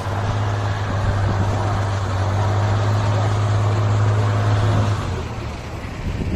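Diesel engine of a trial competition truck running hard under load, a loud, steady, deep drone that falls away about five seconds in.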